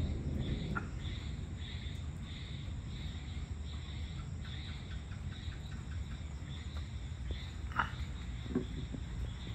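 Insects chirping in a steady pulsing rhythm, about two pulses a second, over a low steady background rumble, with a brief sharper call about 8 seconds in.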